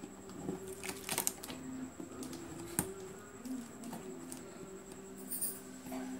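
Scissors cutting the packing tape on a cardboard box: a quick cluster of sharp snips about a second in, and another single snip a little before three seconds.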